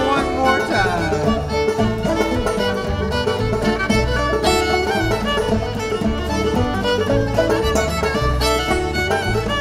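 Live old-time dance band playing a fiddle-led contra dance tune with a steady, driving beat.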